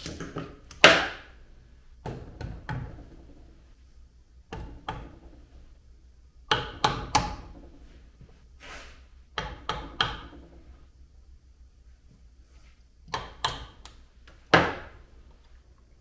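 Rubber mallet tapping on a connecting rod's bearing cap on the crankshaft of a Honda CBR1000 engine with the crankcase split, knocking the cap loose. It comes as short groups of one to three sharp knocks, each ringing briefly, with pauses of a second or two between.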